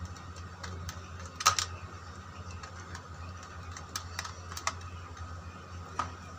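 Small tester screwdriver clicking and scraping on the terminal screws of a plastic socket as a neutral wire is fastened: a handful of scattered sharp clicks, the loudest about a second and a half in, over a steady low hum.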